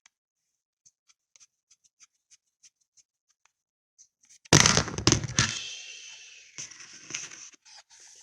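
Small ticks and clicks of hands working screws with a screwdriver into a laptop hard drive's mounting, then a sudden loud clatter about halfway through that rings and dies away over a couple of seconds.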